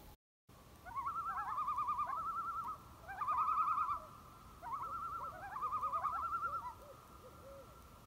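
Common loons giving quavering tremolo calls, several voices overlapping, in three bouts.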